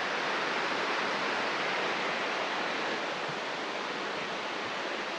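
Steady rush of a mountain waterfall: an even, unbroken hiss of falling water.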